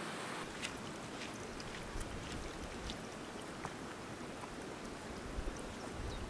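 Water trickling and lapping, with small irregular plinks and drips and uneven low gusts of wind on the microphone. A brighter steady rushing sound cuts off about half a second in.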